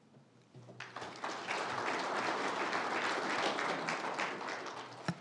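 Audience applauding at the end of a talk. The clapping starts about a second in, builds, then fades, with a single sharp knock just before it ends.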